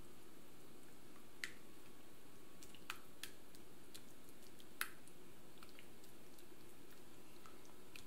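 Silicone spatula folding soft, wet cake batter in a glass bowl: quiet squelching with a few light clicks of the spatula against the glass, the sharpest about five seconds in, over a steady low hum.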